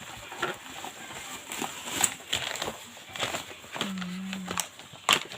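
Scattered clicks and light rustling from handling a magnetic chess set and its packaging, with two sharper clicks about two and five seconds in and a short low hum just before four seconds.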